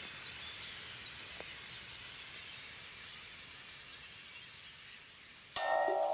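Dense, distant chattering of starlings roosting in a reed bed, heard as a steady hiss-like wash that slowly fades. About five and a half seconds in, music comes in suddenly with a held chord, louder than the birds.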